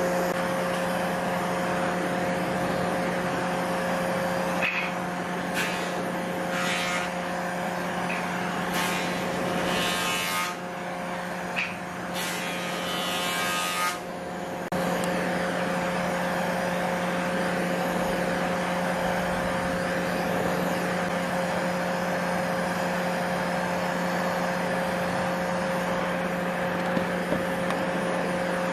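Handheld butane torch burning steadily with a hissing roar as it scorches a pine stool's surface, a steady hum beneath it. Between about 5 and 15 seconds the sound changes, with a few short sharper bursts of hiss.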